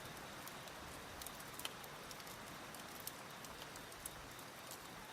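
Faint nature soundscape: a steady rushing hiss of wind and flowing water, with scattered sharp crackles of a wood fire.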